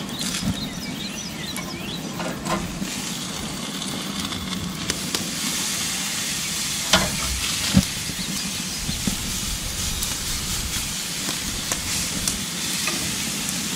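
Beef tenderloin filets sizzling as they sear on a hot grill: a steady frying hiss that grows stronger about five seconds in, with a couple of sharp clicks about seven seconds in.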